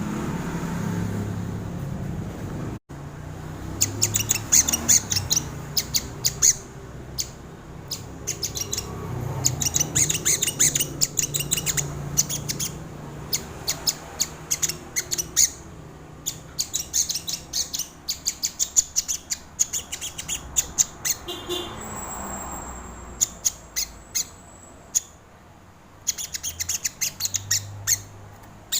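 Crimson sunbird (sogon) calling: rapid runs of sharp, high chips and ticks, coming in quick bursts with short pauses between.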